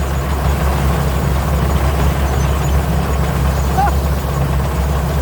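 Combine harvester's single-turbo diesel engine running steadily while harvesting rice, a deep, even drone.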